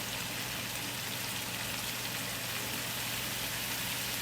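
Pork and cabbage sizzling in a hot pan during a stir-fry: a steady frying hiss, with a low steady hum underneath.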